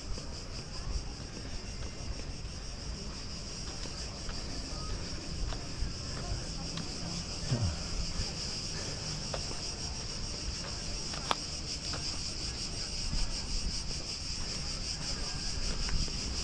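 A steady, high-pitched insect chorus: a shrill, rapidly pulsing chirring that does not let up, over a low rumble.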